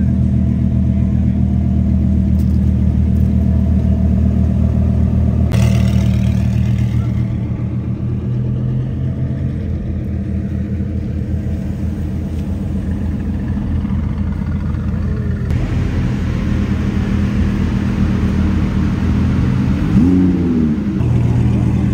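Lamborghini Huracán V10 engines idling with a steady low rumble, with a short rev blip about five seconds in and another brief rise and fall in pitch near the end.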